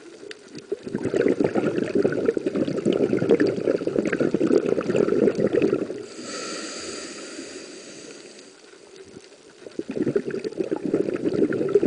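A diver breathing through a scuba regulator, recorded underwater: a long rush of bubbling, crackling exhaled air, a softer hissing inhale about six seconds in, then bubbling again from about ten seconds.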